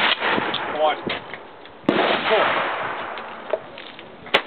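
Shotgun fired at a thrown clay target about two seconds in, the report echoing and dying away over about a second. A shorter sharp crack comes near the end.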